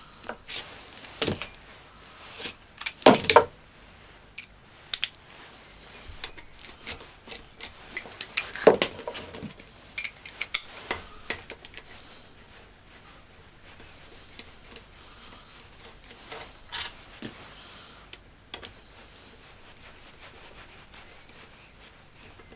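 Irregular metallic clinks, taps and light rubbing of hand tools and small steel flange bolts being worked and handled while the oil pump is unbolted from a Honda 400/4 engine case. The clinks come in clusters, busiest in the first half, with a quieter stretch in the middle.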